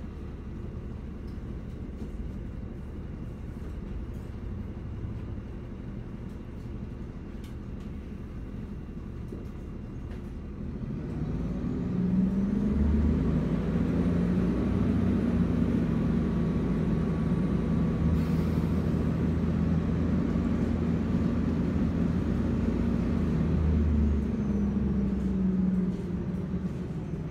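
City bus engine idling at a stop, heard from inside the bus. About eleven seconds in, it revs up as the bus pulls away, rising in pitch and running noticeably louder with a faint high whine through the acceleration, then eases off near the end.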